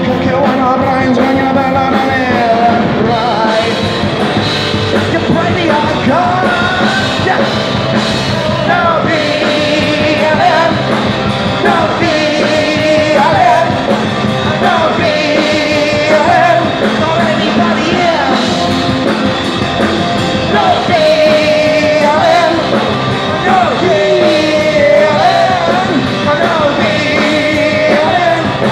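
Punk rock band playing live and loud: a singer sings over electric guitar, bass guitar and drums, the vocal line coming in short repeated phrases every couple of seconds.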